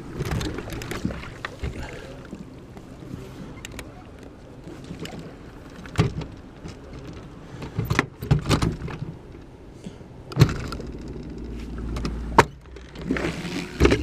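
A boat motor running steadily at a low hum, with scattered sharp knocks and thumps on board. A low rumble swells up near the end.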